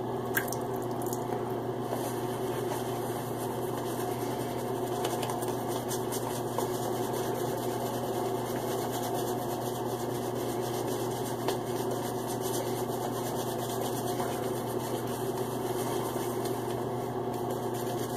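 Wet shaving brush whipping Stirling Spice soap lather in a mug after a splash of water: a steady squishing, swishing sound with fine crackles as the lather is built toward a thick, yogurt-like consistency.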